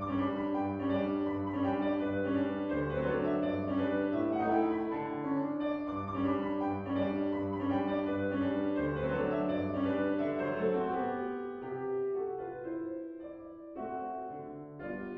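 Solo piano playing a composed piece, a melody over a repeating bass figure. It softens about ten seconds in, and a new phrase enters near the end.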